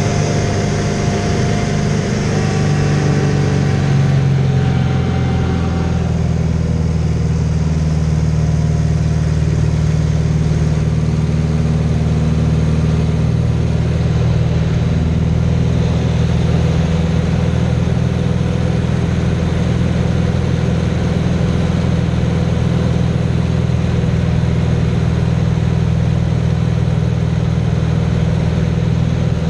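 Aerobatic biplane's piston engine and propeller running steadily under power, heard from inside the cockpit with air rushing past. The engine note shifts in pitch over the first few seconds and holds steadier after that.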